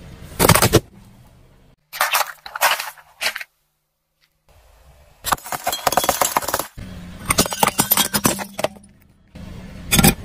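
A car tyre crushing a series of objects on pavement: a sharp burst about half a second in, then repeated bouts of cracking and snapping plastic, and another sharp crunch near the end. A low car engine hum runs between the crushes, broken by short silent gaps.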